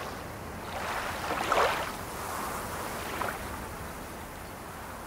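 Sea waves washing, a rushing wash that swells loudest about a second and a half in, then settles and slowly fades.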